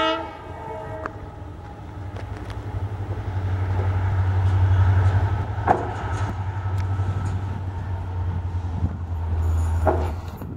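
WDP4B diesel locomotive's horn sounds for about a second, then its two-stroke EMD engine drones at full power, growing louder as the train accelerates toward the listener. Two sharp clicks stand out, one about halfway and one near the end.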